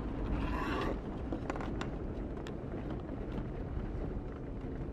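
Jeep Wrangler JKU Rubicon driving slowly over a snow-covered track, a steady low engine and tyre rumble heard from inside the cabin, with a few faint light ticks.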